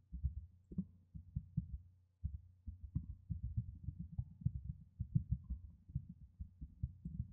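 Computer keyboard being typed on in quick, irregular runs of keystrokes, heard as muffled low thuds, with a short pause about two seconds in. A faint steady hum lies underneath.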